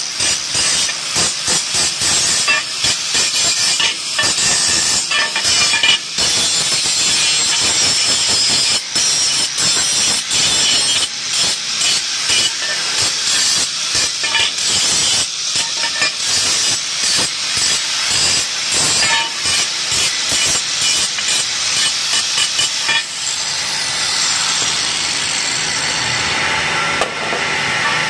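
Handheld angle grinder grinding steel tube, its abrasive disc shrieking against the metal. The noise swells and dips over and over as the disc bites and lifts, and it turns steadier for the last few seconds.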